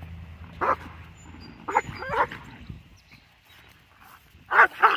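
German Shepherd barking: a single bark about half a second in, two quick barks around the two-second mark and two more near the end.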